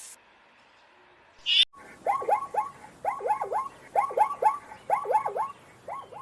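An animal's short calls, each one dropping in pitch, repeated quickly in groups of two or three. Just before the calls start there is a brief high-pitched sound.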